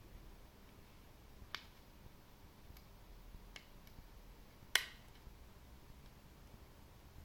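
Sharp plastic clicks from the housing of a Microsoft Mobile Mouse 3500 as its shell parts are worked apart by hand: one click about a second and a half in, two fainter ticks, and a louder snap near five seconds in.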